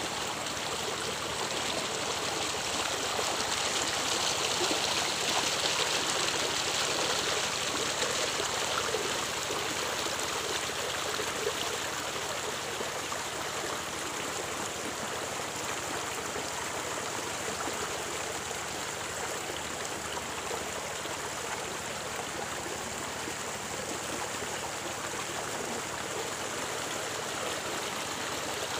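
Shallow stream rippling steadily over rocks and stones, a little louder a few seconds in.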